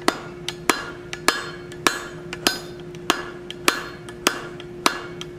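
Blacksmith's hammer striking hot quarter-inch mild steel flat stock, about ten evenly spaced blows with a few lighter taps between them, setting down a shoulder in the middle of the bar.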